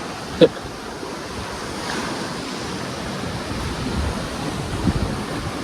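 Sea waves washing onto a beach, with wind on the microphone. A short, loud voice-like sound comes about half a second in.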